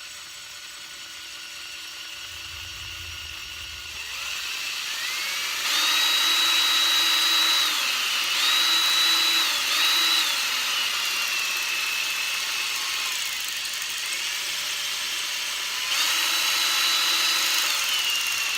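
Power drill spinning a spring-loaded three-stone hone inside a motorcycle shift fork bore, with cutting fluid, to take out scoring. The motor whine speeds up and slows several times.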